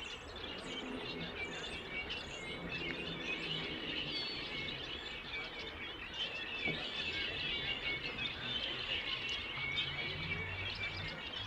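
Birds chirping, with many small overlapping calls and no pause throughout.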